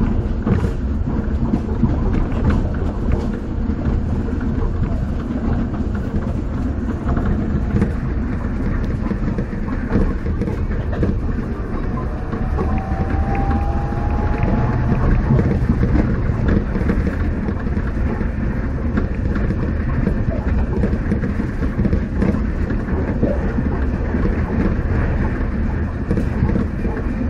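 Yamaman Yukarigaoka Line rubber-tyred people-mover car running along its concrete guideway, heard from inside the cab: a steady low rumble and tyre noise, with a faint rising whine for a couple of seconds about halfway through.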